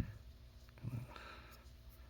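Quiet pause with a short low knock at the very start, then a brief low murmur about a second in and a faint breath or sniff.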